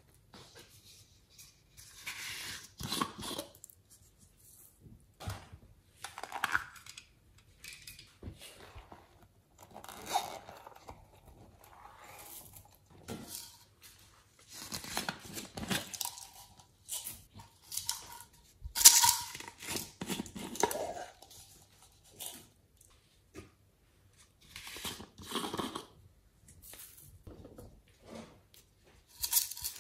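Hands handling and opening small plastic slime containers, giving irregular rustling, crinkling and clicking noises in short bursts, the loudest about two thirds of the way in.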